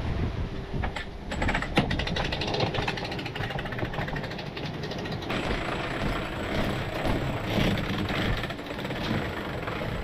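Cockpit sailboat winch being cranked with a winch handle, its pawls giving a rapid run of clicks, over a steady rush of wind and sea.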